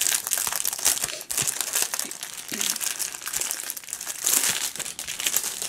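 Clear plastic packaging crinkling continuously as a rolled diamond painting canvas inside its plastic sleeve is handled and lifted.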